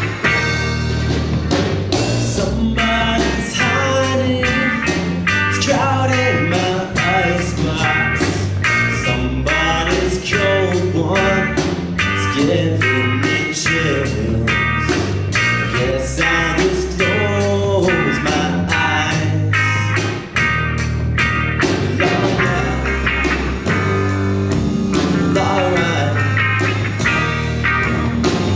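Live rock band playing a blues-rock number with electric guitar, bass and a steady drumbeat.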